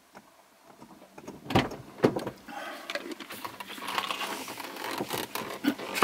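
Thumps, clicks and rustling inside a parked minivan as a person climbs into the front passenger seat, with two sharp knocks about a second and a half and two seconds in.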